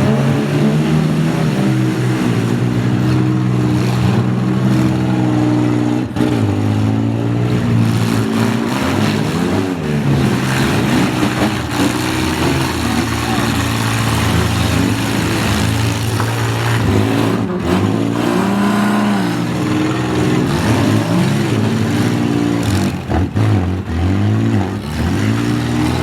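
Several demolition derby vehicles' engines running and revving hard, rising and falling in pitch, with a few sharp thuds of impacts between them.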